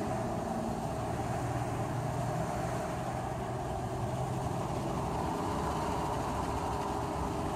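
Steady engine and road noise inside the cab of a moving pickup truck.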